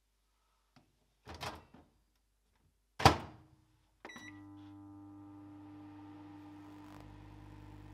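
Microwave oven: a faint click and a short rattle, then a loud clunk about three seconds in as the door shuts, a brief beep a second later, and the oven starts running with a steady hum.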